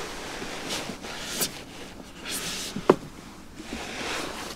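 Quiet rustling and handling noise, with a couple of soft swishes and one sharp click a little under three seconds in.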